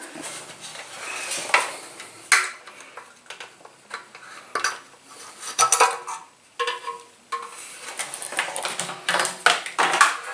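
Irregular clicks and light knocks of hands handling a scooter's fuel gauge float unit, its parts tapping against the gas tank and its opening as it is worked out.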